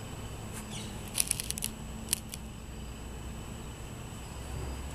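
Quiet outdoor background hum with a quick run of sharp clicks about a second in, and one more click about two seconds in.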